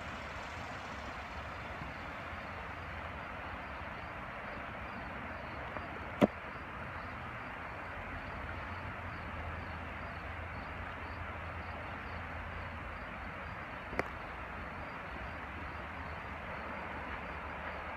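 Steady rush of a shallow river running over rocky rapids, broken by two sharp clicks, about six seconds in and again about eight seconds later.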